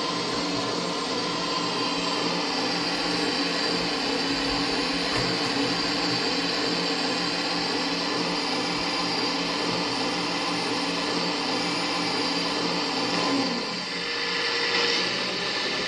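Electric motor and hydraulic pump of an RC Liebherr R 954 excavator model running with a steady whine. Near the end the pitch and level dip briefly, then come back up louder.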